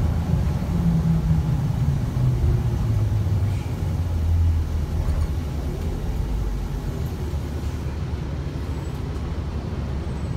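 Gillig BRT city bus engine and drivetrain droning, heard from inside the passenger cabin. The engine note slides down over the first few seconds, then settles into a quieter, steady low rumble.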